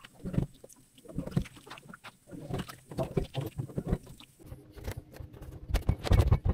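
A knife knocking and cutting into a hard-skinned winter squash (kara kabak): irregular thuds and cracks, the loudest near the end.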